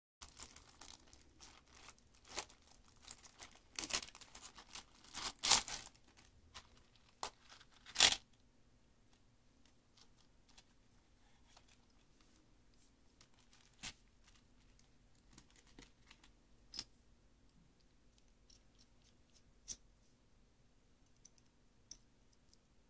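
Plastic packaging of a screwdriver wallet kit crinkling and tearing as it is pulled open, in a run of bursts over the first eight seconds or so, loudest in two sharp rips. After that, scattered light clicks and taps as the wallet and its metal screwdriver bits are handled.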